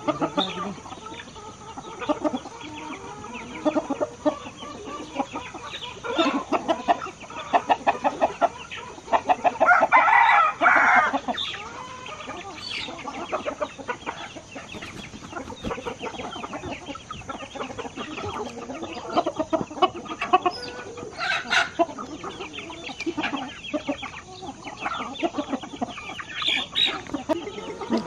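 Flock of chickens clucking and calling continuously, with a rooster crowing once for about two seconds near the middle.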